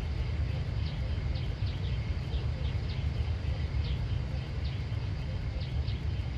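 Small birds chirping in short, scattered high notes, several a second, over a steady low rumble.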